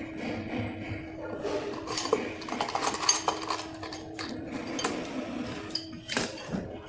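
Metal tools and e-bike motor parts clinking and knocking in a string of sharp taps, busiest around the middle. A faint steady hum runs underneath and stops near the end.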